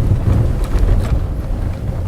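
Road and tyre rumble inside a VW Polo Sedan driving over rough, cracked asphalt, with a few faint dull knocks from the front suspension, which the owner puts down to play in the steering rack bushing and to the shock struts.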